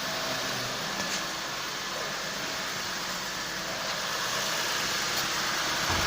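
Car engine idling steadily, a little louder toward the end.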